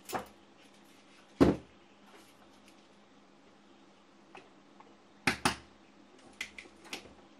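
Knocks and clicks of tools and a reel of solder being picked up and set down on a workbench: a loud knock about a second and a half in, a close pair of knocks past the middle, then a few lighter clicks near the end.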